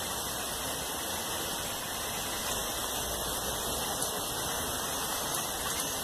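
Steady rush of a small creek's flowing water.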